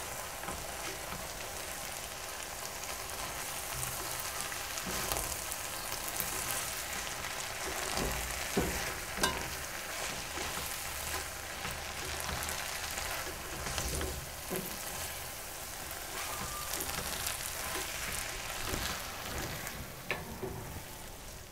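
Spaghetti and minced beef sauce sizzling in a hot stainless steel pan as they are tossed together with kitchen tongs, with a few short knocks of the tongs against the pan.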